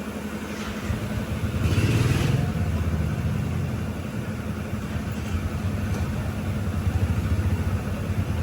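Royal Enfield Bullet's single-cylinder engine running under way with a fast low thump, picking up revs about a second in and then settling to a steady pull.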